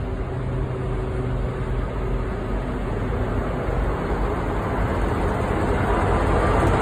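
Diesel freight locomotives running as they approach and pass close by, a low engine drone that grows steadily louder, with wheel and rail noise building toward the end.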